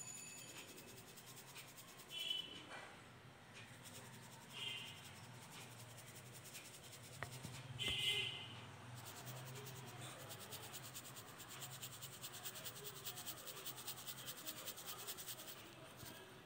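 Crushed mothball powder being worked on a hard surface: faint gritty rustling, with a few short louder scrapes in the first half, the loudest about halfway through, then a fast run of fine crackling ticks in the second half.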